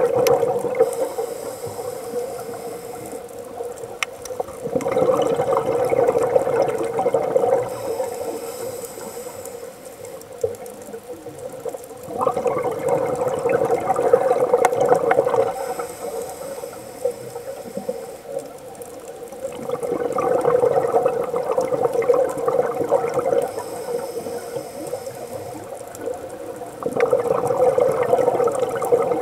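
Scuba regulator breathing underwater: a hiss on each inhale, then a burst of bubbling exhaust on each exhale, repeating about every seven seconds.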